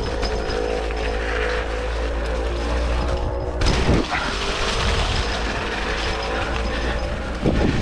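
Mountain bike's rear freehub ratcheting as the rider coasts down a dirt trail, over the rumble of the tyres. There is a sharp jolt a little after three and a half seconds and another near the end.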